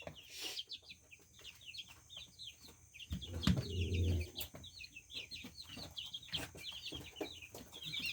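A brood of young chicks peeping continuously: many short, high, downward-sliding peeps overlapping in quick succession. A low muffled sound comes in briefly about three and a half seconds in.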